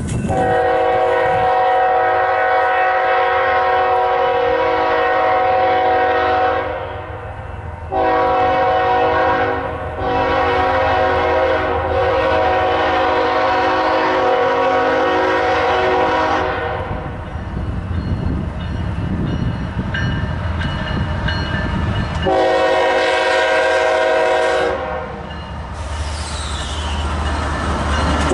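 BNSF locomotive air horn sounding a chord in two long blasts, then a short blast about 22 seconds in, with another long blast starting at the very end: the long-long-short-long grade-crossing signal. The low rumble of the train's wheels on the rails fills the gap between the second and third blasts.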